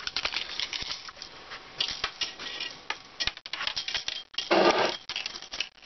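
Handling noise of tools and camera: scattered clicks and light rattles, with a louder rasping rush about four and a half seconds in.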